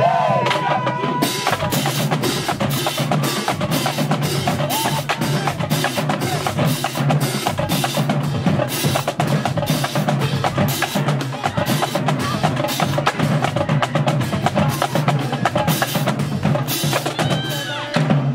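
Drumline of marching snare drums playing a fast, unbroken cadence of rapid, dense strikes.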